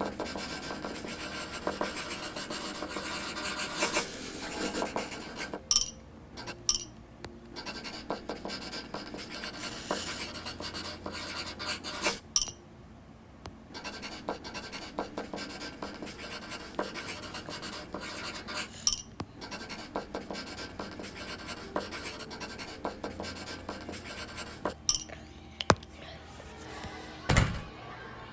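Close scratching and rustling, like something rubbed or handled right at the microphone, in four long stretches with short breaks and many small clicks. It eases near the end into a few clicks and a dull thump.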